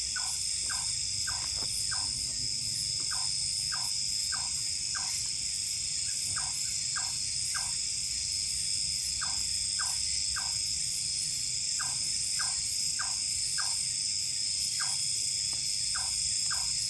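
Night insect chorus: crickets or similar insects trilling steadily with a fast pulsing at the top. Over it, short chirps from another caller repeat about twice a second in runs with brief gaps.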